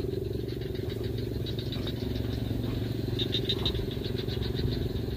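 A steady low drone like a distant engine runs throughout. Over it come rapid trains of short, high pulsing frog calls from the swamp, loudest a little past the middle.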